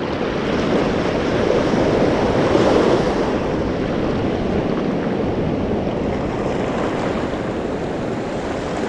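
Small surf washing in over sand and reef at the water's edge, mixed with wind on the microphone. The wash swells a little about two to three seconds in.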